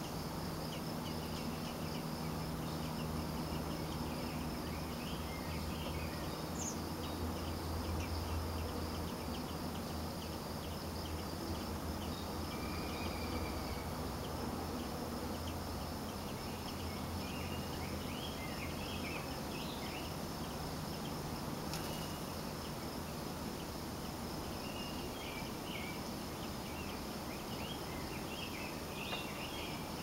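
Steady high-pitched insect trill, with short bird chirps scattered through it, thickest from about halfway on and near the end, over a faint low hum.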